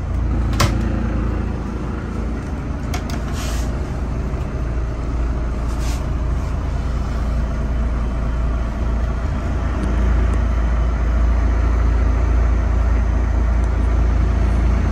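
A steady low hum of running machinery. Over it come a few sharp clicks and knocks from the wooden cabinet doors being opened and their latches worked, in the first several seconds.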